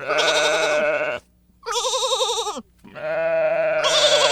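Sheep bleating three times in long drawn-out calls; the middle bleat quavers in pitch and drops away at its end.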